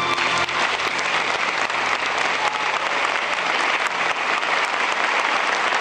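Audience applauding steadily, the dense clapping of many hands, just after a choir's song has ended.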